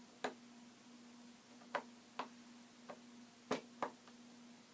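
LEGO plastic pieces clicking and tapping as they are handled and set down on a table: about six sharp, irregularly spaced clicks over a faint steady hum.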